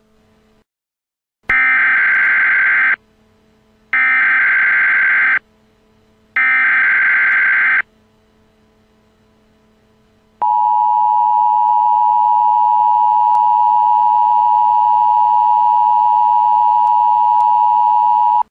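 Emergency Alert System signal: three harsh, screeching digital data bursts of the coded header, each about a second and a half long, then the steady two-tone attention signal for about eight seconds. Together they announce a tornado warning about to be read out.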